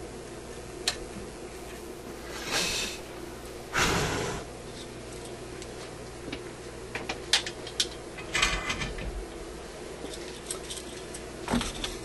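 Light clicks and brief rustling hisses of a soldering iron and small parts being handled at a radio chassis, over a steady low electrical hum. The loudest hiss comes about four seconds in.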